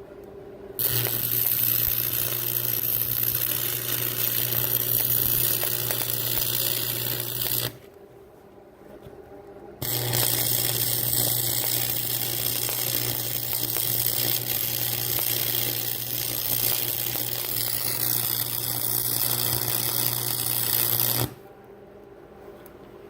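Stick-welding (SMAW) arc crackling and sizzling over a low steady hum, in two runs: the first begins about a second in and lasts some seven seconds, then after a two-second break a longer run of about eleven seconds stops near the end.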